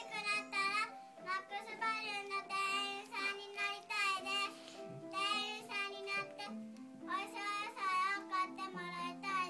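A young girl singing a children's song in phrases, over held accompaniment notes from an instrument.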